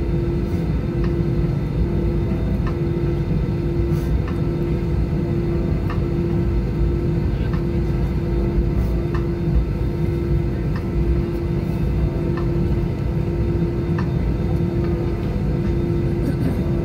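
Airbus A320 cabin noise while taxiing: a steady low rumble from the idling CFM56-5B engines and the rolling aircraft, with a steady hum and faint clicks now and then.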